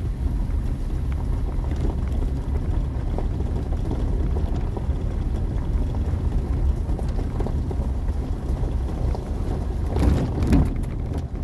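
Steady low rumble of a 4x4 driving slowly over a gravel trail, heard inside the cabin, with scattered small clicks from the stones and the body. About ten seconds in, a brief louder burst of knocks and rattles as it goes over a bump.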